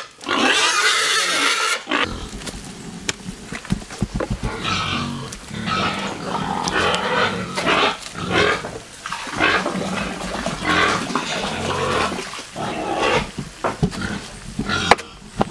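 Pigs squealing and grunting. A loud, harsh squeal fills about the first two seconds, then comes a long run of shorter squeals and grunts.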